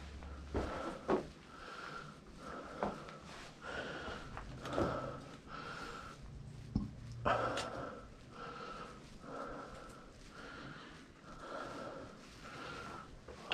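A person breathing hard and fast close to the microphone, short regular breaths about one and a half a second, winded from a steep uphill walk, with a few sharp clicks and scuffs in between.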